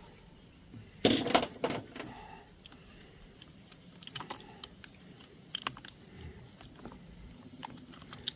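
Hands handling small plastic parts and wiring: scattered light clicks and taps, with a louder cluster of clatter between about one and two seconds in.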